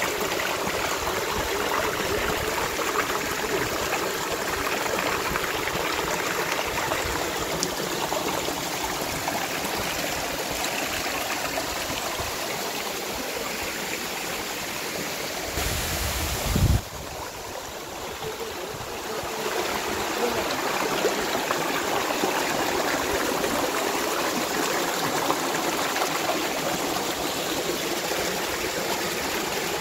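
Steady rushing of water falling and running in a mountain waterfall. Just past halfway a brief low rumble cuts off sharply, and the water sounds duller for a few seconds before returning to its steady level.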